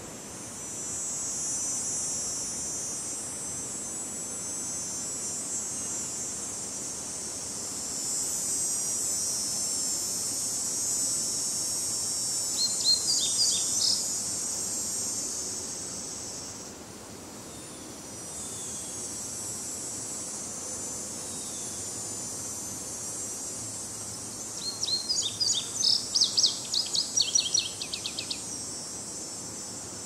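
Cicadas droning in a steady high-pitched buzz that drops out briefly about halfway through, with a songbird singing two quick runs of notes, a short one midway and a longer one near the end, over a faint breeze in the trees.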